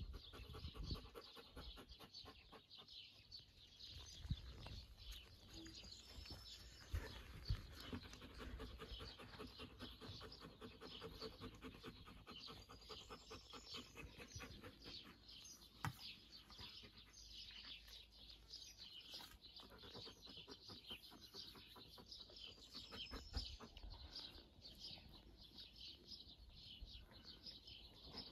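Wolf panting quietly and steadily in quick, even breaths with its mouth open.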